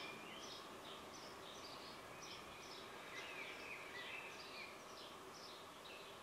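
Faint bird chirping: short, high notes that slide downward, repeated about twice a second over a low, steady hiss.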